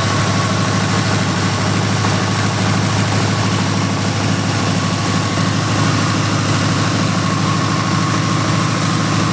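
A 1970 Ford Mustang Mach 1's V8 engine idling steadily.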